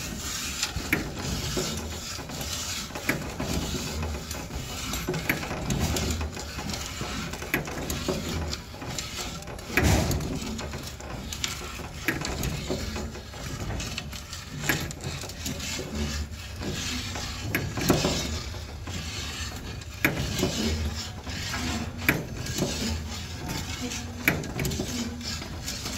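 Steel wire being wound into a spiral coil on a hand-turned pipe mandrel in a wooden stand: continuous scraping and creaking with many irregular clicks and knocks.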